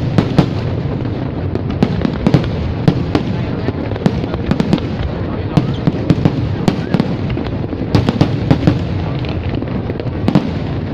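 Aerial fireworks bursting: sharp bangs come in irregular clusters over a constant background din.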